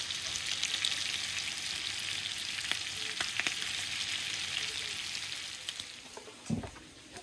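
Steak frying in melted butter in a thin camping pan: a steady sizzle full of small crackles and spits, easing off near the end. A brief low thump comes about six and a half seconds in.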